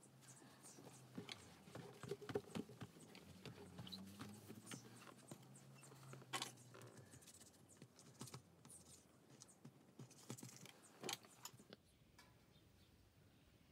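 Near silence with faint scattered clicks and light taps, a few sharper ones standing out, over a faint low hum that fades out about halfway through.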